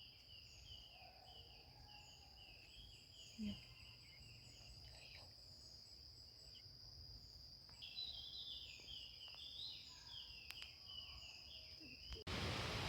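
Forest insects keeping up a steady high-pitched trill, with runs of quick repeated chirps over it at the start and again from about eight seconds in. Near the end it cuts abruptly to a louder hiss of noise.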